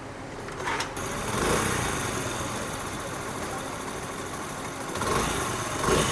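Motorcycle engine starting about a second in and then idling steadily with its magneto side cover off. The engine has an odd internal noise that the mechanic suspects comes from the timing chain, pulled too tight by an over-stiff tensioner-rod spring.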